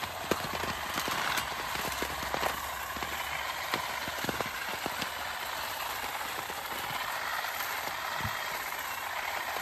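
Battery-powered olive harvester working in an olive tree's branches: a steady rustling rattle of leaves and twigs, dotted with many sharp clicks as the tines strike the branches and olives.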